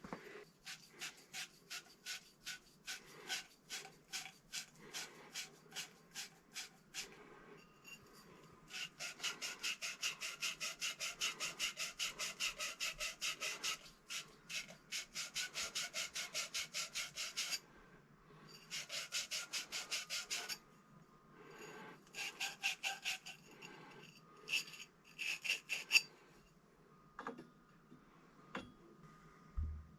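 Copper pipe being scrubbed clean with an abrasive in quick back-and-forth strokes, in several runs with short pauses, fastest in the middle. This is the cleaning before flux and soldering. A few light knocks come near the end.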